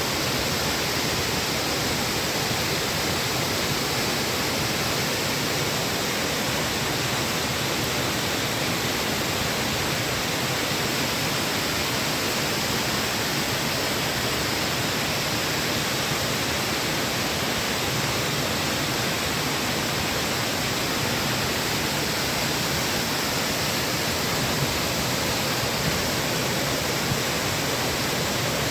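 Waterfall pouring steadily: an even, unbroken rushing of falling water.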